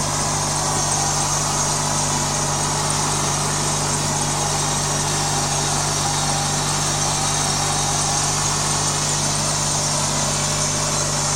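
Riding lawn mower's 18-horsepower V-twin engine running at a steady speed, with an even drone that does not rise or fall.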